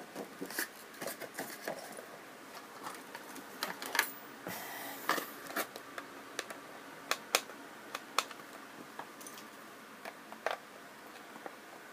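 Irregular light clicks and taps of cardboard and plastic packaging being handled while a diecast model car is taken out of its box, with a short rustle about four and a half seconds in.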